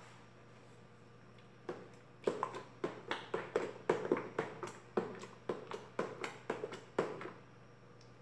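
White plastic spoon stirring a watery homemade soap mixture in a plastic bucket: quick, irregular splashing strokes, several a second, starting nearly two seconds in and dying away near the end.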